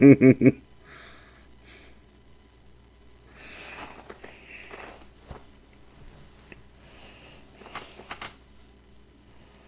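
A burst of laughter, quick repeated voiced pulses, that stops about half a second in. After it come only faint, scattered low sounds.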